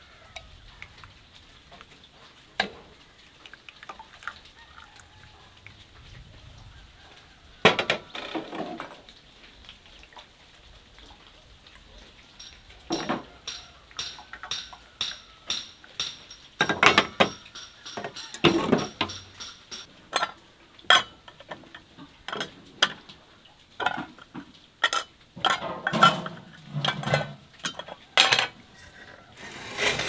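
Glass jars and metal lids clinking and knocking, with a ladle scraping in a metal pot as the jars are filled with rose hip puree. The knocks are scattered at first and come thick and fast through the second half.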